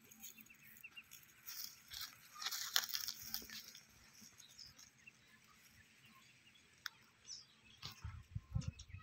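Dry grass rustling and crackling in short irregular bursts, busiest a second or two in, with a few low thumps near the end.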